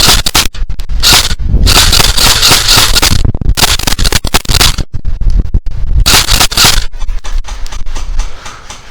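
Airsoft gun firing in rapid runs of sharp cracks close to the microphone, mixed with rough rustling and scraping of gear; the cracks thin out and quieten near the end.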